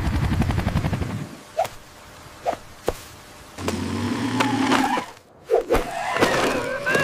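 Cartoon helicopter rotor chopping in a fast, even beat that stops about a second in. It is followed by a few short clicks and squeaks, then a child's short cries near the end.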